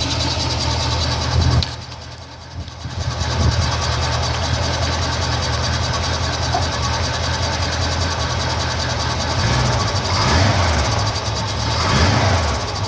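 1979 Chevrolet El Camino engine running, with a weird screeching noise whose cause is unknown. The sound drops off briefly about two seconds in, then the engine comes back. The upper noise grows stronger near the end.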